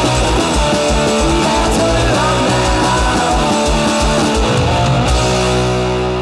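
Garage rock music, a band with electric guitar playing a fast beat. About four and a half seconds in the beat stops and a final chord rings out, starting to fade near the end.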